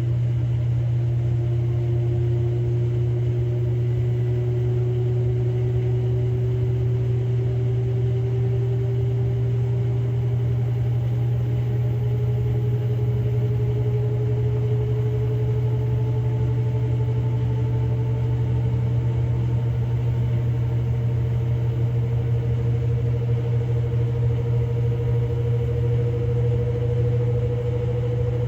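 Samsung Grande AI front-loading drum washing machine on a spin-only cycle: a steady low hum with a motor whine that rises slowly in pitch as the drum speeds up.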